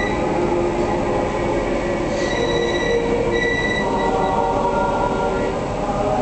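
A choir singing slow, long-held chords that shift every second or so, with a high held note in the middle, relayed over loudspeakers into an overflow room.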